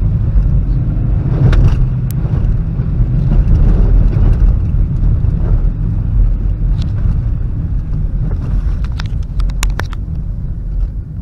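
Car driving slowly on a wet, rough dirt road, heard from inside the cabin: a heavy steady rumble of engine, tyres and suspension. Scattered sharp clicks and knocks, several of them close together near the end.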